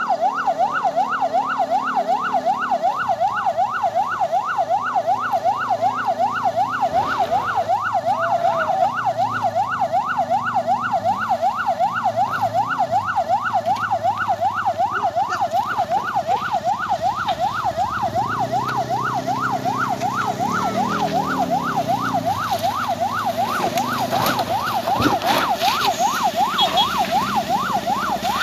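Electronic siren sweeping rapidly up and down, about three times a second, without a break. Under it, vehicle engines labour on the climb, one revving up about two-thirds of the way through.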